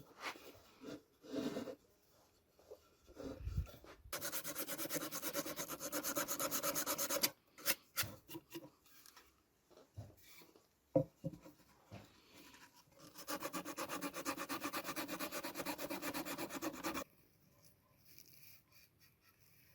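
Quick back-and-forth abrasive strokes by hand on a workpiece, like sanding or filing, in two runs of three to four seconds each. Short knocks and handling noises come between the runs.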